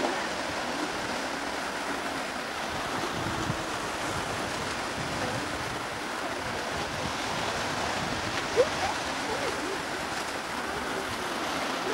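Steady hiss of steam blowing off from a standing BR Standard Class 4 2-6-4T tank steam locomotive, with a brief rising squeak about two-thirds of the way through.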